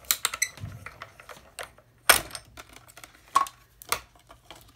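Several sharp clicks and clacks of plastic cutting plates and a metal die being handled as a die-cut sandwich is taken out of a hand-cranked Stampin' Up! Mini Cut & Emboss Machine, the loudest clack a little after two seconds in.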